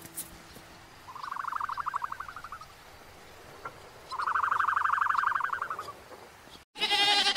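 Two fast pulsing trill calls, each a second and a half to two seconds long, the second one louder. Near the end, after a sudden cut, a goat starts bleating.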